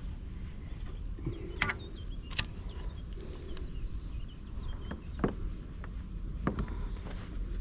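Faint, steady high chirring of insects over a low rumble, with four sharp clicks and knocks of fishing tackle being handled in the kayak, two close together and two later.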